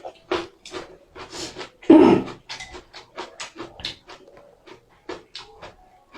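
Close-miked eating sounds: a quick irregular run of wet slurps, chews and breaths over thick hand-cut noodles, with the loudest slurp about two seconds in.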